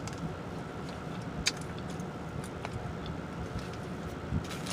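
Steady rush of a car's air conditioning blowing inside the cabin, with a few faint clicks and one sharper click about one and a half seconds in.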